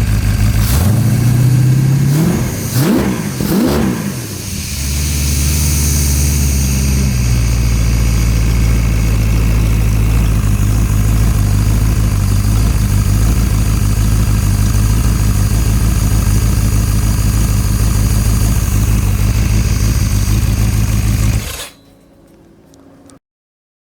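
Chrysler 360 cubic-inch small-block LA V8 with a mild hydraulic camshaft running on test: it is revved up and down a few times about one to four seconds in, holds a higher idle for a few seconds, then drops to a steady idle and is switched off near the end.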